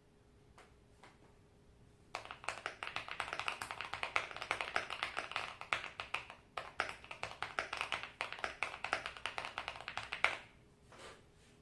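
Custom mechanical keyboard being typed on: a few single key presses, then about two seconds in a fast, dense run of keystroke clacks with a short break midway, stopping about ten seconds in.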